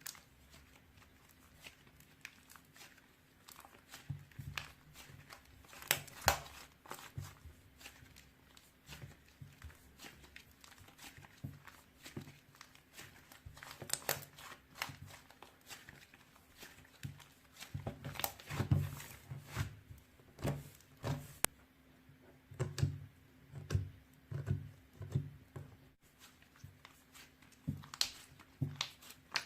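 Hands squishing and poking slime: irregular sticky clicks and crackles with soft low thuds.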